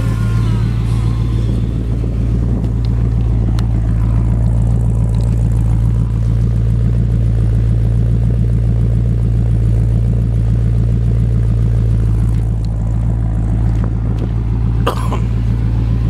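A 400 cubic inch Chevy small-block V8 idling steadily with a low, even rumble, with a few short clicks near the end.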